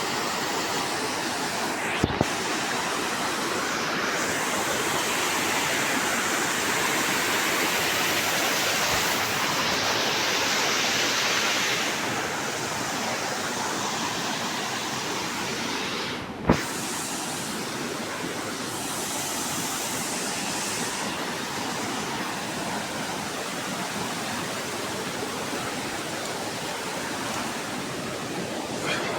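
Steady rushing water, a river or waterfall, making an even hiss, with a sharp click about two seconds in and another about halfway through.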